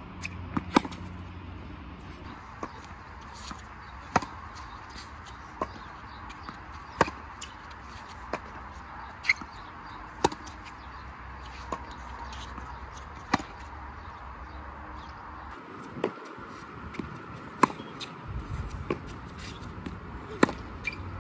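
Tennis ball being struck by racquets and bouncing on a hard court in a groundstroke rally: sharp pops of racquet hits and bounces, one every second or so.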